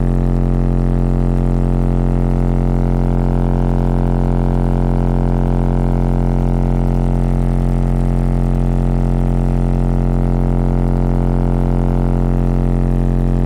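Two 15-inch Rockford Fosgate Power P3 car subwoofers, driven by a 1500-watt amplifier, playing a loud, steady low bass test tone that holds one pitch without sweeping. It has a buzzy stack of overtones and is heard inside the vehicle's cabin.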